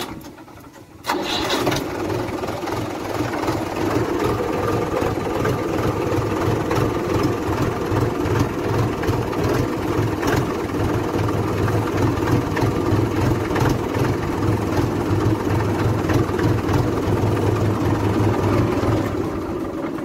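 Mahindra 575 tractor's four-cylinder diesel engine starting about a second in, then idling steadily with an even low pulse, and stopping near the end.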